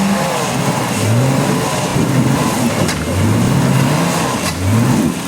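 Off-road 4x4's engine revving in repeated surges, its pitch climbing three times.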